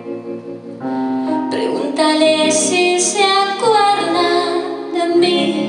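Live pop-rock band: a woman singing over keyboard chords and electric guitar.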